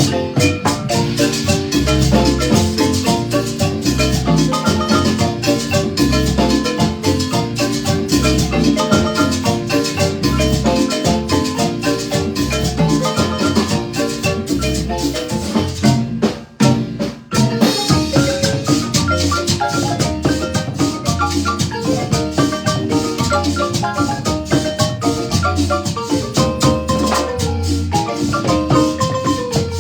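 A marimba ensemble playing a lively tune: quick runs of mallet notes over deep bass notes on a steady beat. The music breaks off for under a second about halfway through, then picks up again.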